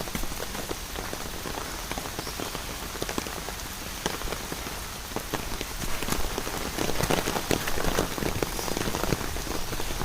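Steady rain falling, with many separate drop hits over an even hiss, a little louder about six seconds in.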